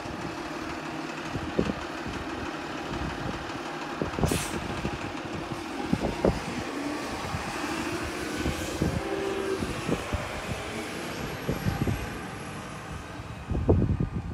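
Garbage truck running along the street, its engine and hydraulics going steadily, with scattered knocks, a brief hiss about four seconds in and a steady whine partway through.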